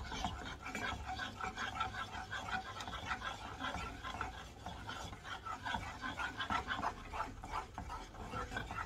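Wooden spoon stirring and scraping a thick egg-yolk custard filling around a small nonstick saucepan, a quick rhythmic swishing of several strokes a second.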